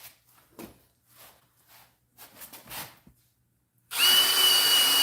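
A few light knocks and rustles, then about four seconds in a handheld power drill starts and runs steadily with a high whine, boring a hole into wood through a drill guide.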